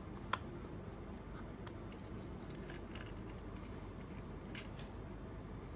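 A few faint, scattered clicks and taps of hands handling a small mirrorless camera body, over a steady low room hum.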